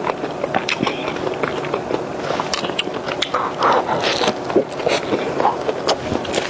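A person chewing and biting into a thick hamburger: a dense run of small wet mouth clicks and crunches.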